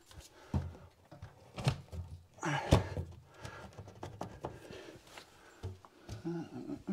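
A few knocks and thuds from a kitchen cupboard door being swung open and handled, with hands moving on the cabinets and floor; the loudest knock comes a little under three seconds in.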